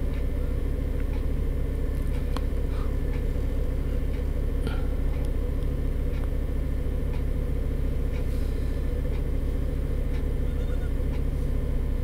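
Doosan 4.5-ton forklift's engine running steadily, heard from the driver's seat, with a few faint ticks.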